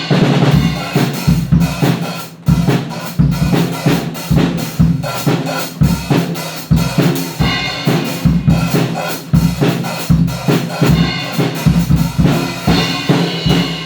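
Drum kit played freestyle: bass drum, snare and rimshots in a busy, fast rhythm of dense hits over a sustained low note.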